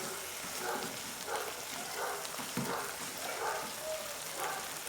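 Sardine and tomato-onion sauce sizzling in a frying pan while a spoon stirs and breaks up the canned sardines, with a string of short strokes about every half second to second over the steady sizzle.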